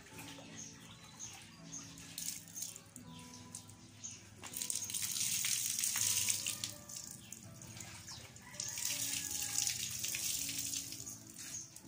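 Water poured from a plastic dipper over a German shepherd's back, splashing off its coat. It comes in two pours of a few seconds each, one about four seconds in and one near the end.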